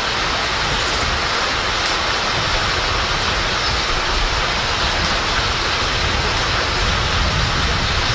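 Steady, even outdoor rushing hiss with no distinct calls or impacts, like rain, wind or running water.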